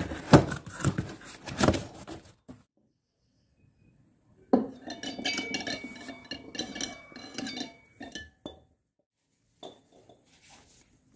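Cardboard box flaps rustling and being pulled open, with sharp clicks and crackles. After a pause, metallic clinking and rattling as a new Wanbao refrigerator compressor's steel shell and copper tube stubs are handled, then a few light clicks near the end.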